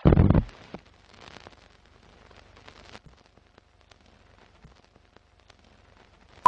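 Sound effects for an animated film-countdown intro: a short, loud low thud at the very start, then faint crackling with scattered ticks.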